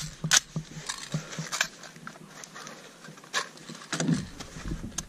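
An M4 carbine being handled between shots, with scattered metallic clicks and knocks of the rifle and the soldier's gear. The loudest click comes about a third of a second in.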